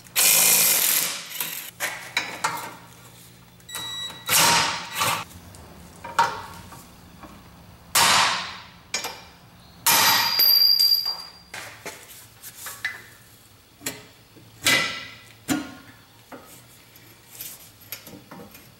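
Cordless impact wrench hammering in several bursts of about a second each, loosening the bolts of a BMW E46's rear lower control arms. Short metal clanks fall between the bursts.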